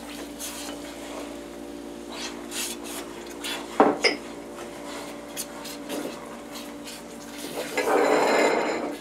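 Spoon scraping a cup and stirring in a stainless steel saucepan as eggs and vanilla go into a butter, cocoa and sugar mixture, with a sharp knock about four seconds in and the loudest, longest scraping near the end. A steady hum runs underneath.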